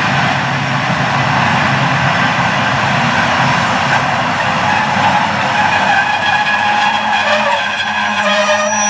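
Romanian-built Class 40 (060-EA type) electric locomotive rolling slowly past close by: a loud steady rushing noise with high squealing tones that grow stronger near the end.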